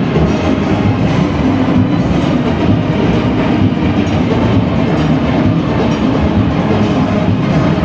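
A large steel orchestra playing loud and dense: massed steel pans over the steady clatter of the engine-room percussion.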